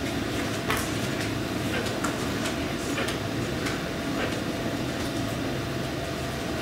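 Classroom room tone: a steady low hum with scattered faint ticks and light taps, like pens and paper being handled on a table.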